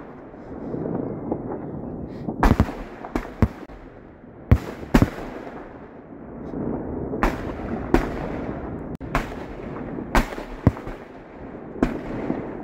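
Fireworks display: aerial shells bursting overhead in about a dozen sharp bangs at irregular intervals, some in quick pairs, over a continuous rumble.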